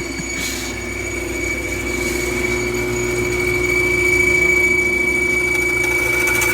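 Bandsaw running with a steady high-pitched whistle over a lower steady hum, the whole slowly growing louder. The whistle is an odd noise that the woodworkers take as a sign something is wrong with the saw and want to check.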